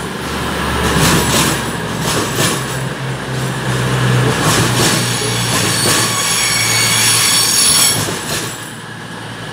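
Train moving through the station: its wheels knock over rail joints and points over a steady low drone. About four seconds in, a high wheel squeal of several tones sets in and stops shortly before the end.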